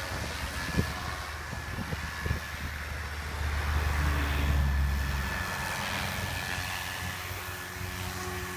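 Electric SAB Goblin 420 RC helicopter flying in low and landing: a steady high whine from the motor and drivetrain over the rotor noise, with a low rumble that swells to its loudest about halfway through as it comes close. A couple of sharp thumps early on, and a lower steady tone after touchdown as the rotor keeps turning.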